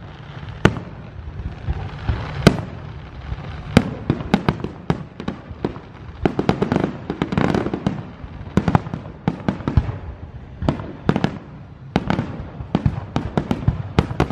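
Aerial firework shells bursting overhead in a rapid, irregular series of sharp bangs. A dense crackle runs through the middle, and the bangs come more closely together toward the end.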